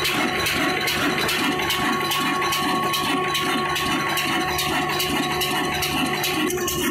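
Old Ruston Hornsby stationary diesel engine running steadily, with an even metallic clatter from its fuel pump and valve gear at about three beats a second.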